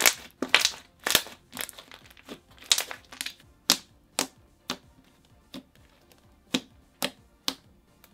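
Thick, glossy slime squeezed in a fist and poked with fingertips, giving a run of sharp clicks and pops: close together at first, then single pops about every half second to second in the second half.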